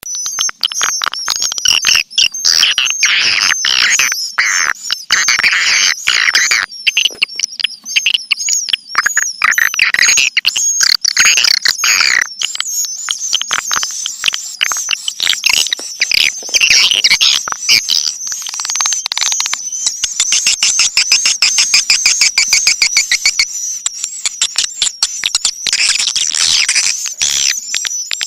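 Swiftlet calling track: many swiftlets chirping and twittering in a dense, unbroken stream of rapid high chirps and clicks. It is a lure call played to draw swiftlets in.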